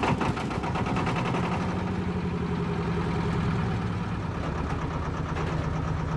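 Lifeboat's two-cylinder diesel engine running steadily at idle, just started ready for launching.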